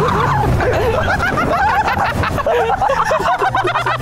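People laughing and giggling.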